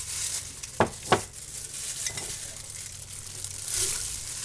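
A plastic-gloved hand rummaging through raw chicken pieces in a metal bowl, with a crackly rustle throughout. Two sharp knocks come close together about a second in.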